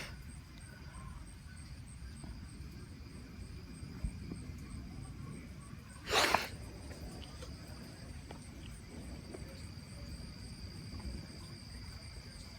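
Insects chirring outdoors as one steady high-pitched tone, over a low rumble of background noise, with a short burst of noise about six seconds in.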